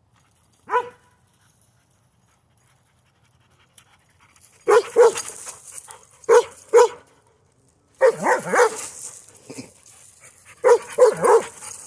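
Weimaraner barking: one short yip about a second in, then a string of loud barks in quick groups of two or three.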